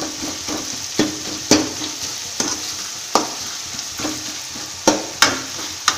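Sliced onions frying in hot oil with a steady sizzle, stirred with a spatula that scrapes and knocks against the pan in irregular strokes about once a second, while the onions are browned for a curry gravy base.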